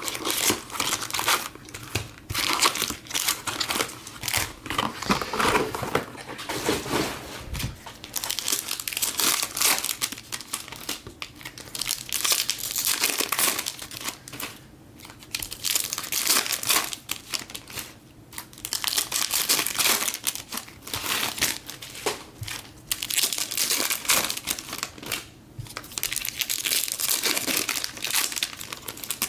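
Trading-card pack wrappers being torn open and crinkled by hand, an irregular run of crackling and crumpling with short pauses.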